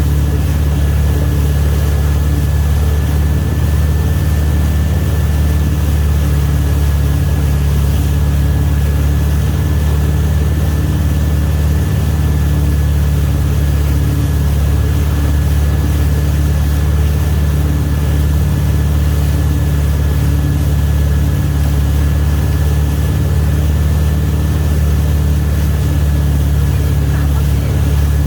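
Wake boat's inboard engine running at a steady speed: a constant low drone with a thin, steady whine above it.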